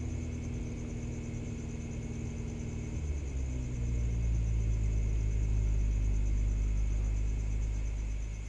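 Car engine sound effect: a low, steady engine rumble as a car approaches, growing louder about three and a half seconds in and starting to fade near the end.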